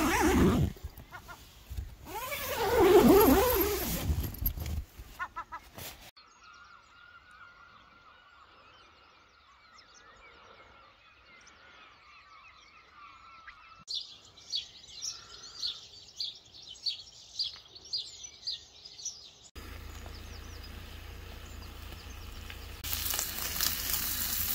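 A tent zip pulled open in short strokes, then birds chirping in quick repeated calls for several seconds, then bacon beginning to sizzle in a frying pan on a portable gas stove near the end.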